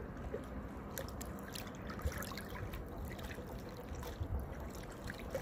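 River water lapping and trickling against the bank right at the microphone, with scattered small splashes and drips.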